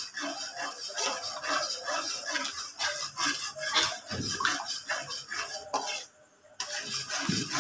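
Metal spatula scraping and stirring in a metal wok with quick, repeated strokes through melted butter and honey being cooked down to thicken. The strokes pause briefly about six seconds in, then a few more follow.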